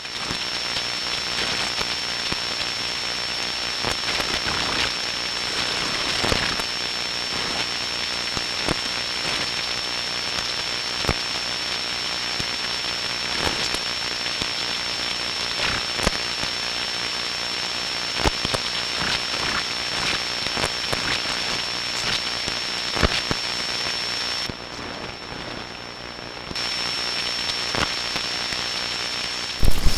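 Glitchy radio-TV signal static: a steady hiss of interference with a thin, high, steady whine and scattered crackles. About 25 seconds in, the whine and the top of the hiss cut out for two seconds, then come back.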